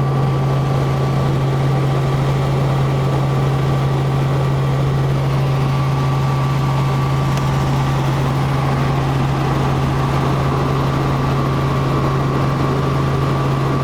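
Helicopter running with a steady, unchanging drone: a strong low hum with a faint high whine above it.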